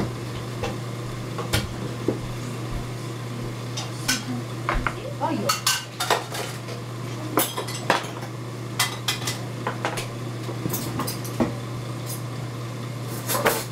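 Dishes and utensils clinking and knocking in a kitchen: a scatter of separate sharp clinks, some ringing briefly, over a steady low hum.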